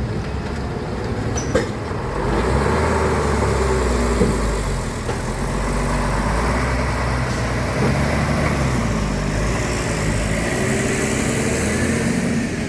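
Truck engine running steadily, its pitch slowly rising and falling as it pulls along, with a single sharp click about a second and a half in.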